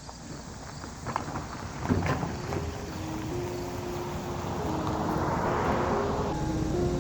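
A few knocks, then background music fading in: held electronic melody notes that step in pitch, with a rising whoosh that cuts off near the end.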